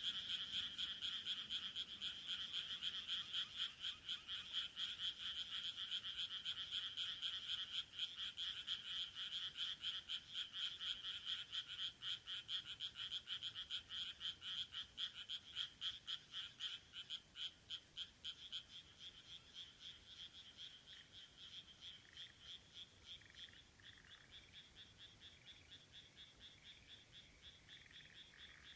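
A chorus of many rice-paddy frogs croaking in rapid, overlapping pulses. It grows quieter over the second half.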